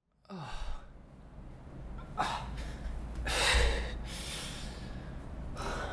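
A person gasping and breathing heavily, about five ragged breaths, the loudest about three and a half seconds in, over a low steady hum.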